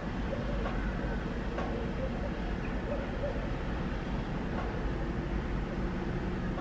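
SM42 diesel shunting locomotive running steadily as it approaches hauling a works train, a low engine drone whose note grows clearer near the end.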